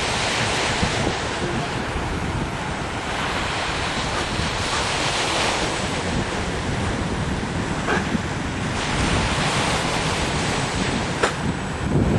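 Sea surf washing on the shore with wind buffeting the microphone, in slow swells.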